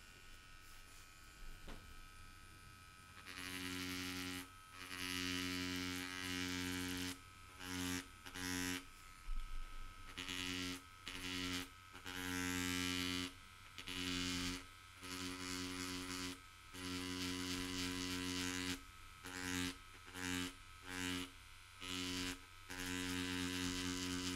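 Pen-style cartridge tattoo machine at 7 volts with a medium beveler tip, its needle hammering leather to bevel a carved line. It is a steady buzz that starts a few seconds in and comes in stretches of one to two seconds, broken by short pauses.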